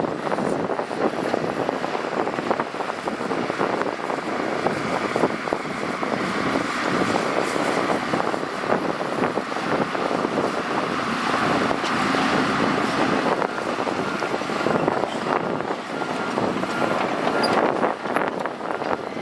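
Shantui crawler bulldozer working, its engine running steadily with a constant clattering rattle.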